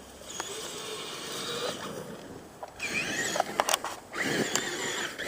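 A 40 mph RC truck's electric motor whining in several bursts of revving, rising and falling in pitch, as the truck tries to drive free after getting stuck. A few sharp clicks come about three and a half seconds in.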